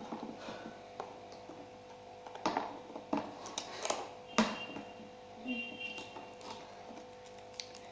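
Cardboard boxes being picked at and opened by hand: scattered clicks, scrapes and a few short tearing rustles as fingers work at the taped flaps. A faint steady hum runs underneath.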